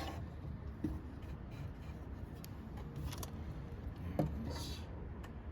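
A few light knocks and a short scraping hiss about four and a half seconds in, over a low steady rumble: handling noises while working a wooden strip.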